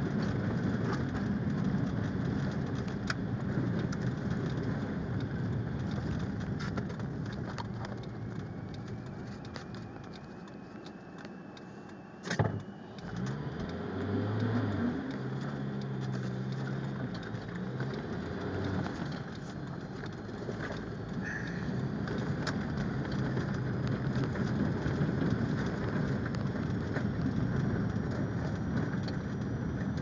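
Car driving on a snow- and slush-covered road, heard from inside the cabin: steady tyre and road noise with the engine running. A single sharp knock about twelve seconds in, followed by a few seconds of low engine tone.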